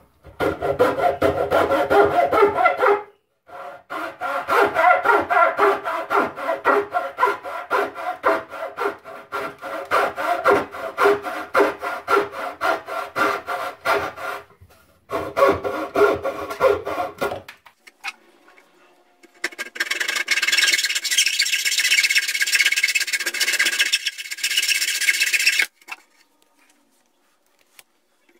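Hacksaw cutting across a pine pallet board in rhythmic back-and-forth strokes, in three runs with short pauses, cutting off a marked corner so it can be rounded. Past the middle comes a brighter, hissier scraping for about six seconds, then it stops.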